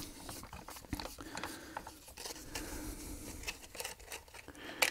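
Faint scraping and small clicks of hands working screws and parts on a stripped-down belt sander's frame and plastic casing, with a sharper click just before the end.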